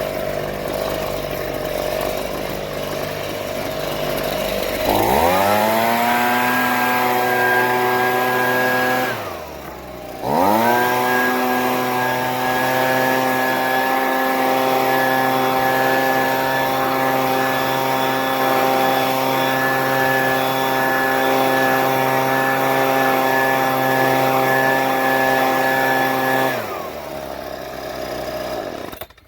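Husqvarna 125BVX 28cc two-stroke handheld leaf blower idling, then revved up to full throttle about five seconds in. It eases off briefly near ten seconds, runs at full throttle again, then drops back to idle and cuts off near the end.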